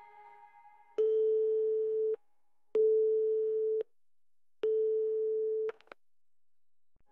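Three long electronic beeps at one steady mid pitch, each about a second long, separated by short gaps, with a click as each starts and stops.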